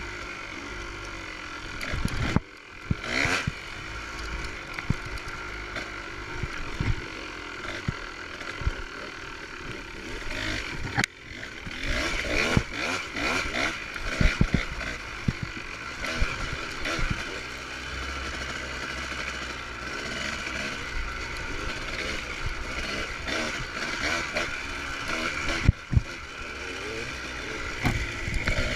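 Dirt bike engine running under throttle while riding, with scattered knocks and short dips where the throttle is let off.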